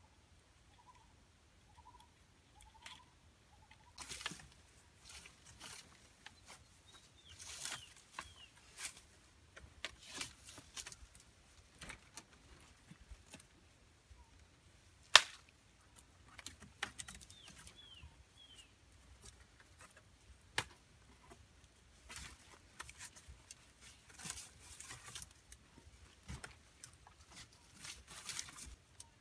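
Irregular rustling, scraping and creaking as sticks are lashed together with cord by hand, with one sharp snap about halfway that is the loudest sound. A bird gives a few short high chirps in the background.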